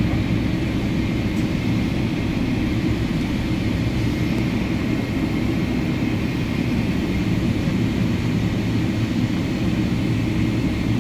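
Boeing 777-300ER's GE90 turbofan engines running steadily, heard inside the passenger cabin as a steady low rumble with a faint high whine above it.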